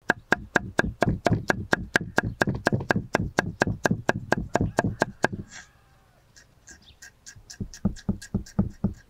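Chef's knife dicing a yellow bell pepper on a wooden cutting board: a fast, even run of chops, about five a second, for about five seconds, then a short pause and a second run of chops.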